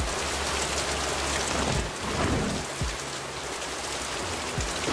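Soundtrack with a dense rain-like hiss over low sustained bass tones and a few soft low thumps.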